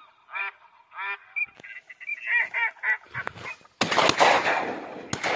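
Ducks calling: a run of short, repeated nasal quacks, several a second, over the first three seconds. About four seconds in, loud rustling noise from branches brushing the microphone takes over.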